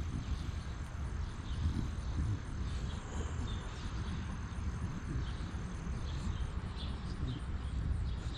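Outdoor yard ambience: a steady low rumble with scattered short bird chirps. A thin, high, steady whine stops about six and a half seconds in.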